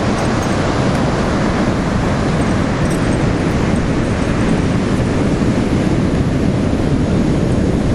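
Steady roar of ocean surf breaking on a beach, mixed with wind buffeting the microphone.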